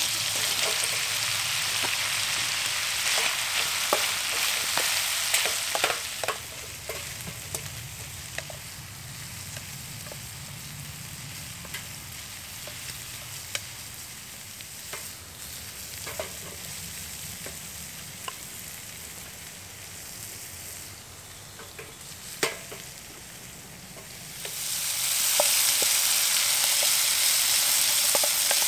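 Bacon and sliced mushrooms sizzling in a frying pan over a small wood-fired stove, with scattered clicks and scrapes of a wooden spatula stirring. The sizzle drops quieter about six seconds in and swells back up near the end.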